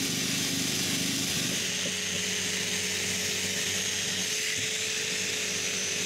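Electric sander running steadily, sanding old peeling white paint off a wooden door.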